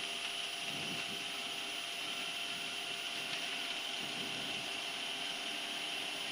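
Cockpit noise of a Gulfstream G-IV accelerating down the runway at takeoff power: a steady hiss with a faint whine from its turbofan engines.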